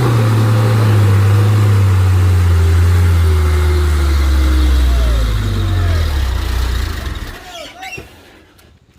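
Heavy truck's diesel engine labouring loudly, its pitch sinking slowly as it bogs down, then dying away after about seven seconds.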